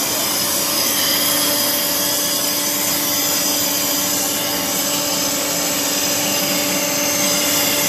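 Polygon pole welding machine running: a steady, even hiss with a constant low hum.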